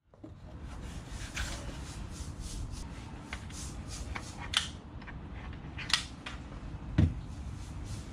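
Light clicks and taps of hand work on a clamped wooden capping rail and its cardboard template, with one heavier knock about seven seconds in, over a steady low background rumble.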